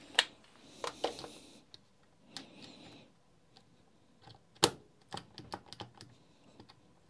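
Scattered sharp metal clicks and taps as a hex bit in a bit holder is handled and pushed into the freshly reassembled quick-release chuck of a Makita DTD156 cordless impact driver, testing that the chuck takes the bit. The loudest click comes a little past halfway, followed by a quick run of lighter clicks.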